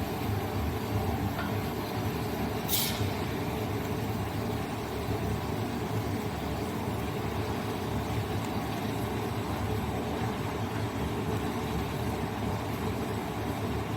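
DC electric arc furnace running: a steady low rumble under a constant hiss. A short sharp hiss cuts in briefly about three seconds in.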